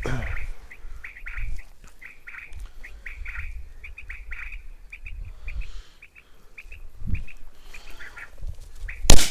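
Brush and grass rustling with a run of short high chirps, then a single loud shotgun shot about nine seconds in, fired at a flushed quail.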